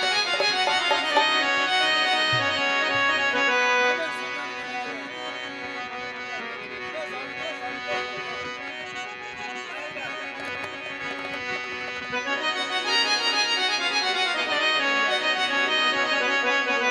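Instrumental interlude of a Punjabi folk song: sustained melodic instrumental notes with no singing. It is softer for several seconds in the middle and grows louder again about two-thirds of the way through.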